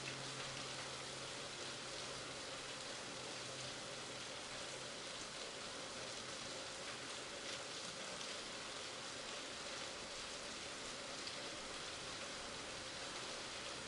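Heavy rain falling steadily, an even hiss with no thunderclaps.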